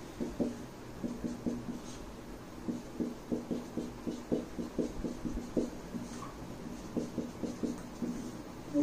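Marker pen writing on a whiteboard: a run of short, quick strokes as a formula is written out.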